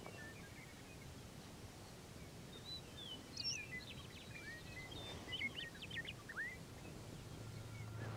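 Wild birds calling over steady outdoor background noise on open grassland: a scatter of short chirps, down-slurred whistles and quick trills, mostly in the middle few seconds.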